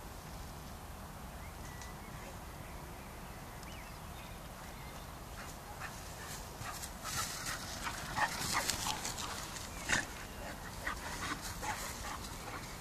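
An eight-month-old cross-breed dog running through long grass. At first there is only a faint steady background. From about seven seconds in, a string of short dog noises and rustles comes as the dog nears, with the sharpest one about ten seconds in.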